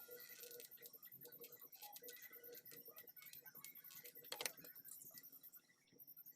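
Near silence, with faint scattered clicks and one slightly louder tap about four seconds in.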